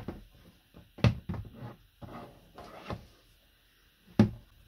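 Handling noise from a plug-in temperature controller and its cords being picked up and moved about in a plastic tub: several knocks and thumps with some rustle between, and a sharp knock near the end.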